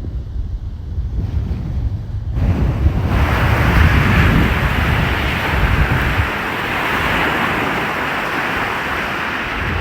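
Ocean waves washing onto the shore, with wind buffeting the microphone. A couple of seconds in, a wave breaks and its hiss swells suddenly, loudest a second or two later, then settles into a steady wash.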